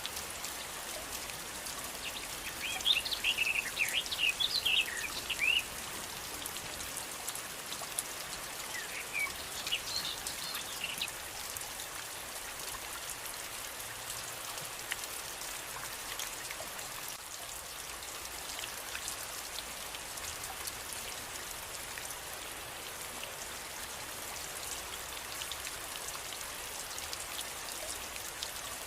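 Steady rain falling, with a dense patter of individual drops. A bird chirps in two short bouts within the first ten seconds, louder than the rain.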